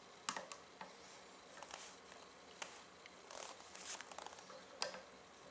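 Faint metal clicks and scraping as a locking pin is worked into the steel breech block of a PCP airgun test barrel: a handful of separate sharp clicks, the loudest near the end.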